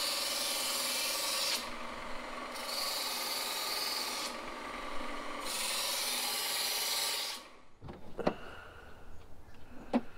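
Electric knife sharpener running, with a fillet knife blade drawn through its grinding slot three times, a hissing grind on each pass. The motor cuts off about seven and a half seconds in, followed by a few faint knocks.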